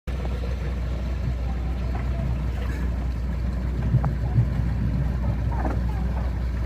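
Cargo boat's Hino six-cylinder diesel engine running steadily, a deep even rumble.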